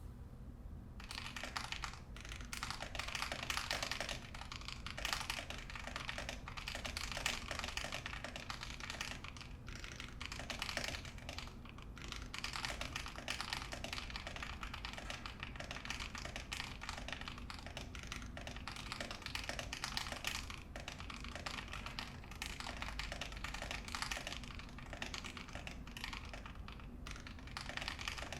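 Continuous fast typing on a 60% mechanical keyboard in an acrylic case with an aluminium plate and lubed Fekker Holy Panda tactile switches. The dense run of keystrokes starts about a second in, and for a few seconds in the middle the keys are struck at a steadier, evenly spaced pace.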